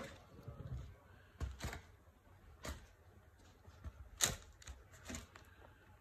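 Sneaker and tissue paper being handled in a shoebox: a few scattered clicks, taps and rustles, the sharpest about four seconds in.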